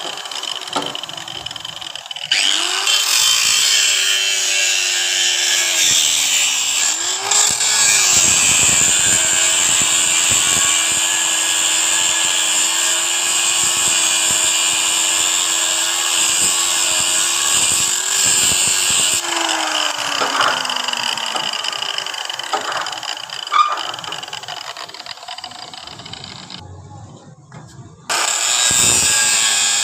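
Angle grinder cutting through a 5-inch steel pipe: a harsh grinding hiss over the motor's hum, whose pitch dips and recovers as the disc bites into the metal. It gets loud about two seconds in, eases off in the later part, drops away for a moment near the end and then comes back loud.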